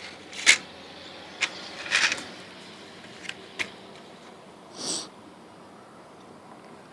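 A CD case and its packaging being handled: several sharp plastic clicks and taps, then a short rustling swish about five seconds in.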